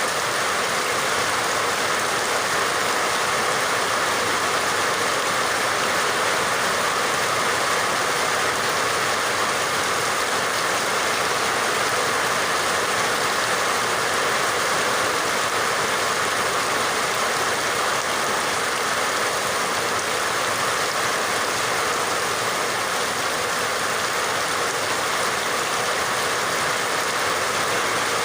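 Steady rain falling in an even, unbroken hiss, with no individual drops, thunder or changes standing out.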